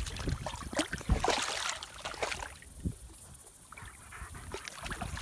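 Shallow lake water splashing and sloshing around a boxer dog wading in it, a busy run of small splashes for the first couple of seconds, then quieter lapping with a few more splashes near the end.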